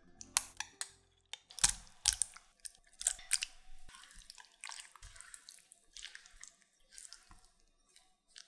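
Chicken breast pieces being stirred and folded through thick wet batter with a silicone spatula in a glass bowl: irregular sticky squelches and slaps, loudest and most frequent in the first few seconds, then fainter and sparser.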